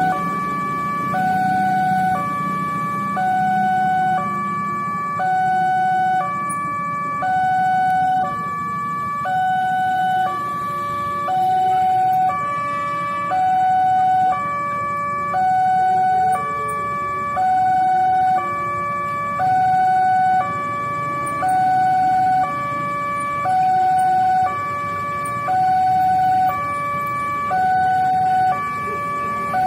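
Railway level-crossing warning alarm sounding its electronic two-tone signal, a higher and a lower tone alternating about once a second, the warning that a train is approaching while the barriers are down. Motorcycle and car engines idle underneath.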